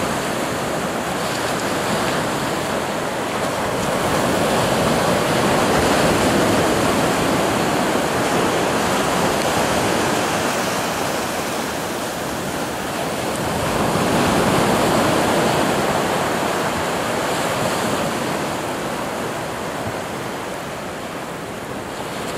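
Small surf washing up a sandy beach: a continuous rush of breaking waves that slowly swells and eases, loudest about six and fifteen seconds in.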